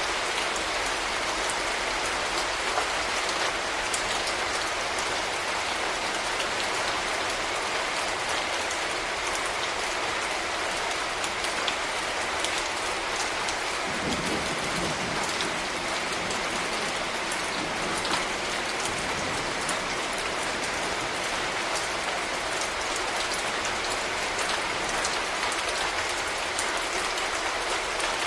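Steady rain falling, a continuous hiss with the patter of individual drops ticking through it. A low rumble swells briefly about halfway through.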